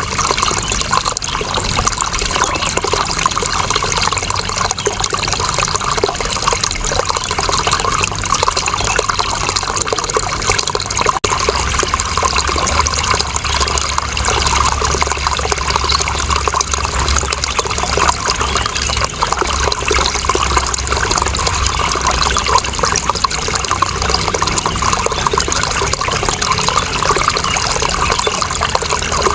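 Steady, continuous rush of running water with a dense splashing hiss, with one brief dip about eleven seconds in.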